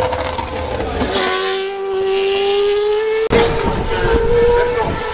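Formula race car engine running at high revs. Its note drops at about a second in as the car goes by, then climbs steadily as it accelerates. The sound breaks off abruptly a little past three seconds, and a steady high engine note carries on.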